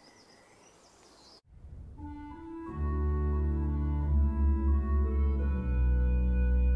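Faint background hush, then organ music begins about a second and a half in: held chords that swell and fill out within a second, changing chord every second or so.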